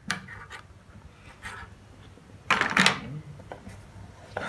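A few brief rustles and scrapes of cardboard packaging and small accessories being handled and set down on a table. The longest and loudest comes about halfway through.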